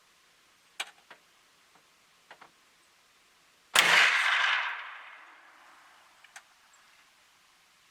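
A single muzzleloader shot about four seconds in: an abrupt blast that dies away over a second or so. A few faint clicks come before it.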